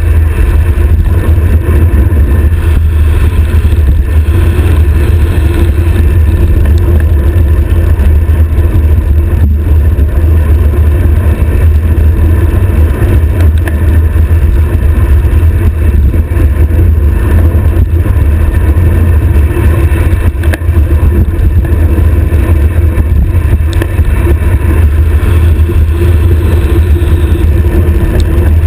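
Loud, steady wind roar buffeting a stem-mounted action camera's microphone as a road bicycle descends at high speed, a deep low rumble with no letup.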